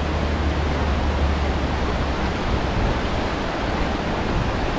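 Whitewater rapids of the Nantahala River rushing steadily, a dense even hiss. A low rumble underneath runs steady and turns uneven about halfway through.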